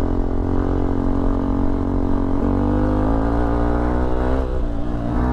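Hero XPulse 200 motorcycle's single-cylinder engine running under throttle as the bike rides along. Its pitch steps up about halfway, dips briefly near the end, then climbs again.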